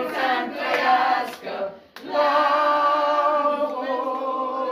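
Women's voices singing unaccompanied: a short sung phrase, then a long held note from about two seconds in that dips slightly near the end.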